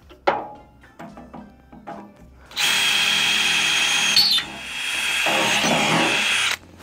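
Handheld electric drill boring into the steel of a tractor loader bucket, running steadily for about four seconds, easing off briefly midway, then picking up again and stopping suddenly. Before the drilling, a sharp knock and a few light clicks; soft background music underneath.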